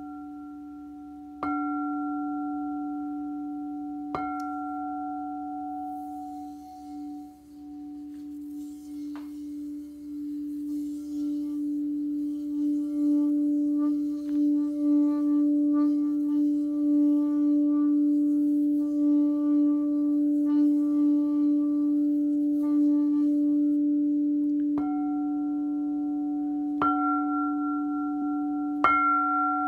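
Crystal singing bowl struck twice with a mallet, ringing with one clear sustained tone. In the middle the tone swells louder and wavers for about fifteen seconds, and near the end the bowl is struck three more times.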